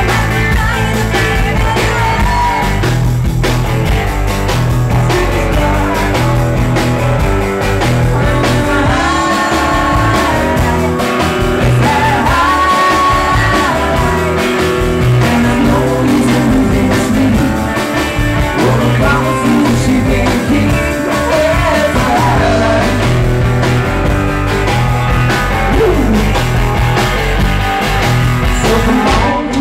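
Live rock-and-roll band playing loudly: electric guitar, electric bass and drum kit, with a woman singing lead.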